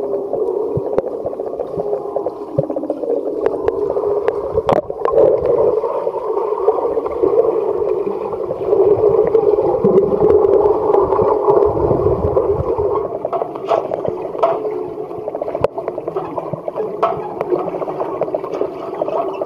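Muffled underwater sound of a swimming pool: churning water and bubbles from swimmers kicking and stroking, over a steady hum, with scattered small clicks.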